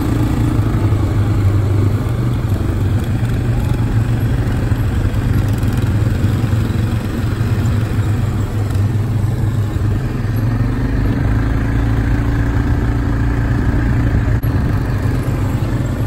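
Quad bike engine running steadily under way on a dirt trail, its note rising a little about ten seconds in.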